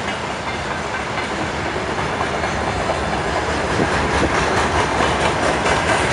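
2ES10 'Granit' electric locomotive hauling a freight train on its approach, a steady rolling rumble of wheels on rail that slowly grows louder. From about four seconds in, a run of regular clicks joins it as the wheels cross rail joints.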